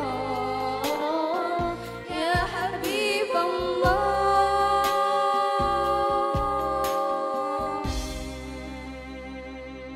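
A young woman sings into a microphone over an instrumental backing with a steady bass and drum hits. Her wavering, ornamented line settles about four seconds in onto one long held note. The voice and backing then fade away near the end as the song closes.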